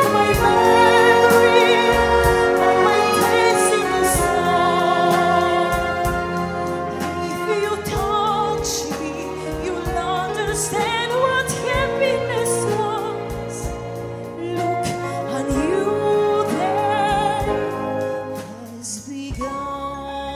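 Live symphony orchestra, strings to the fore, with voices singing, playing a slow ballad in a concert arrangement. The music grows quieter in the last part and drops down about a second before the end.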